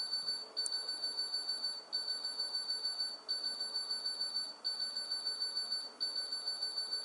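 High-pitched electronic tone from the homebuilt Wireless World serial transistor computer, pulsing about six times a second with a short break roughly every 1.3 s, while the machine works through a multiplication.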